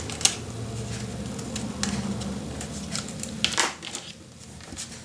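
Paper crafting handling sounds: cardstock and tape being worked on a table, with a few sharp taps and paper rustles over a steady low hum.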